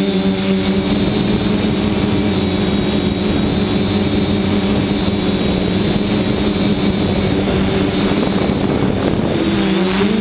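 Multirotor drone's electric motors and propellers running steadily, heard from the drone's own onboard camera: a high whine over a loud buzzing hum and rushing noise.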